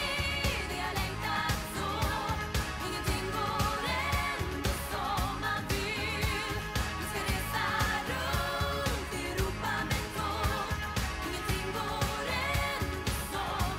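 Pop song with a woman singing in Swedish over a steady beat of drums and bass.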